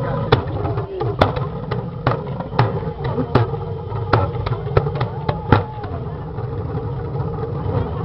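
Steady low engine hum from the idling art car, with sharp clicks and pops at irregular intervals, about one every half second to a second, that die away after about five and a half seconds. People are talking in the background.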